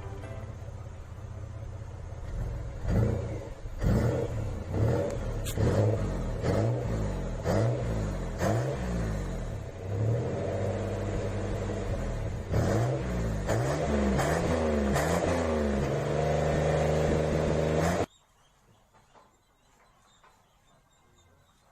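Chevrolet Blazer's Vortec 4.3 V6 engine running, with a series of short throttle blips that rise and fall in pitch, settling between them to a steady note. The sound cuts off suddenly about 18 seconds in.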